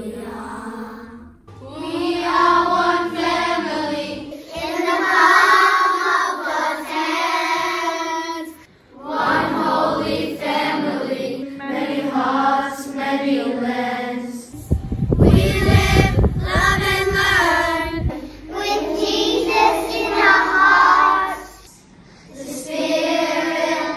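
A group of children singing a song together, in sung phrases a few seconds long with short breaks between them. Past the middle, a low rumble sits under the singing for about three seconds.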